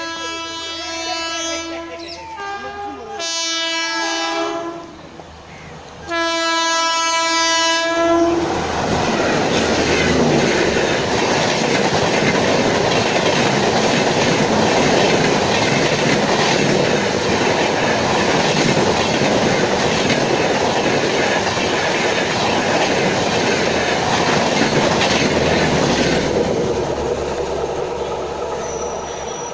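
Indian Railways WAP-4 electric locomotive sounding its horn in three long blasts as it approaches. Then the Humsafar Express rushes past at speed in a loud steady roar of wheels on rails, which fades as the train draws away near the end.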